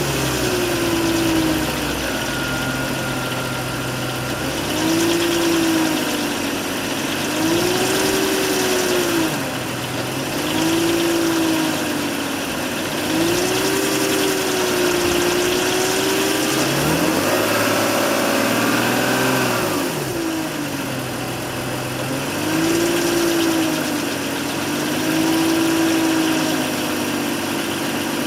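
BMW E39 530i's straight-six engine idling after a warm start, with repeated short revs every few seconds and one higher rev about two thirds of the way through. The owner reports a rattle from it when warm at low rpm and for a few seconds after a warm start, cause unknown.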